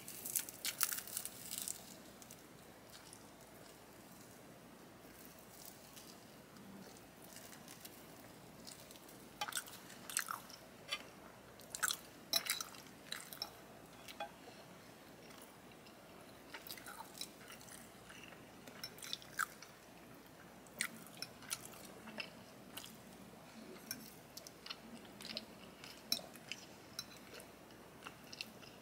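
Mouth sounds of a person biting and chewing garlic Texas toast and chicken Alfredo. They come in clusters of short, sharp clicks with quieter pauses between.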